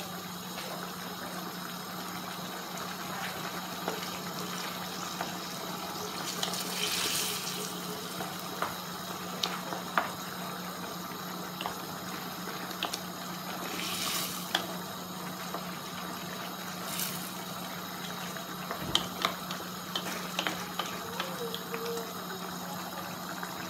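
Tomato sauce with chicken and seafood simmering and bubbling in a wide pan, with a wooden spoon stirring and now and then clicking against the pan. A brief hiss rises a few times and a steady low hum runs underneath.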